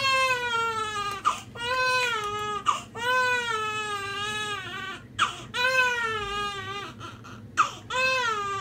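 A baby crying steadily, about five long cries in a row, each broken off by a short sharp intake of breath.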